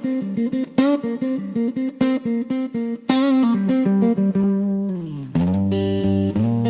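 Instrumental guitar music: a run of quickly picked notes, then a bend down into held, lower sustained notes about five seconds in.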